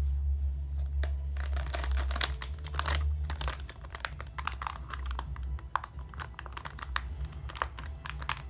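Anti-static bag around a Gigabyte GeForce GTX 1660 Ti graphics card crinkling in rapid, irregular crackles as the card is lifted from its box and handled, over a steady low hum.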